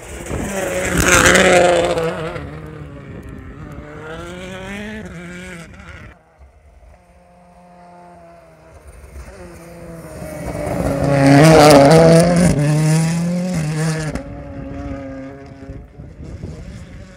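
Two World Rally Championship cars with 1.6-litre turbocharged engines pass at full speed, one about a second in and a louder one around twelve seconds in. Each engine note climbs and shifts as the car approaches, then falls away as it goes past.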